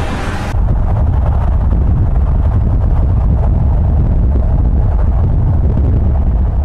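Loud, steady low rumble of a car on the road, starting about half a second in as the music cuts off.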